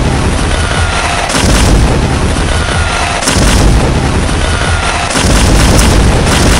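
Fireworks bursting: continuous crackling with heavy booms about every two seconds.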